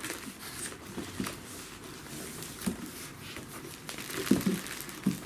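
Plastic wrap on a pack of pull-up training pants crinkling and rustling as the pack is slid out of a cardboard box, with a couple of soft knocks near the end.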